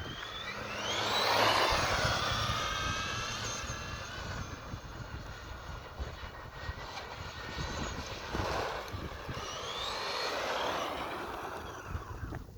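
Battery-powered RC car's electric motor whining, its pitch rising as the car speeds up and falling as it slows, once about a second in and again around ten seconds in.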